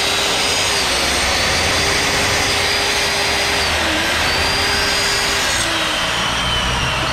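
Angle grinder with a cut-off disc cutting into steel: a loud, steady grinding hiss over the motor's whine. The whine dips briefly about four seconds in and drops in pitch near the end as the motor slows.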